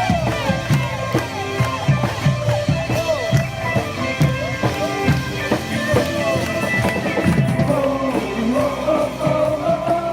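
Music with voices singing over a steady beat.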